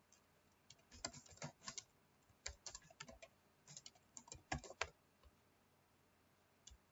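Faint typing on a computer keyboard: a quick run of key clicks lasting about four seconds, then a couple of single clicks near the end.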